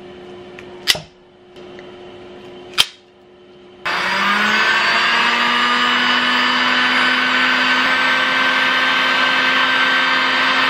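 Two sharp clicks of a ratcheting crimping tool closing on wire connectors, then a Ryobi heat gun switched on about four seconds in, its fan motor running steadily with a whine that rises slightly as it spins up.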